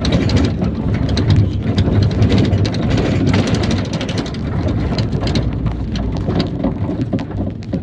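IVECO Daily bus running, a steady low engine and road drone with constant irregular rattling and knocking from the body and fittings. It fades slightly near the end.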